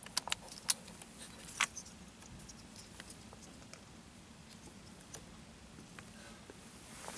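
Small plastic clicks and handling noises from plugging the connectors of a steering-wheel airbag module back in by hand. A few sharp clicks come in the first two seconds, then only faint scattered ticks.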